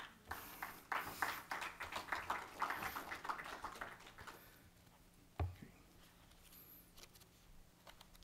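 Paper rustling and crinkling close to the podium microphone as pages are shuffled on the lectern, with a single soft knock on the lectern about five and a half seconds in, then faint room tone.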